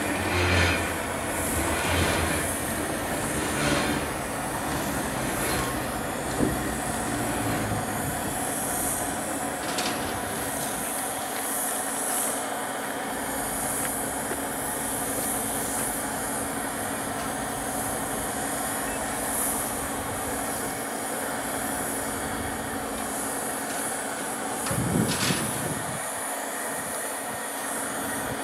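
Railway turntable turning with the C58 239 steam locomotive aboard: a steady mechanical hum and a high hiss, broken now and then by a single short clank.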